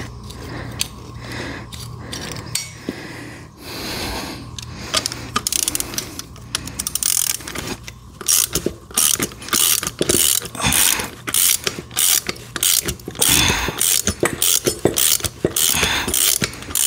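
Socket ratchet wrench clicking as a bolt is backed out of a steel hydraulic valve manifold, in rapid back-and-forth ratcheting strokes that pick up about five seconds in.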